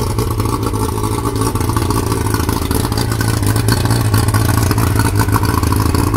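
Yamaha 115 hp two-stroke V4 outboard running steadily on a flush hose, now running good after its carburetors were reworked.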